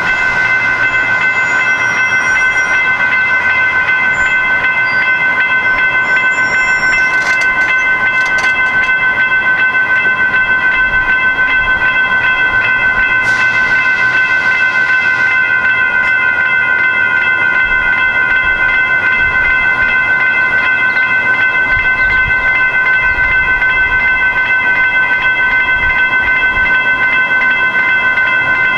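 Railroad grade-crossing warning bell ringing continuously in a fast, even, repeating ding, the signal that the crossing is activated and the gates are coming down for an approaching train.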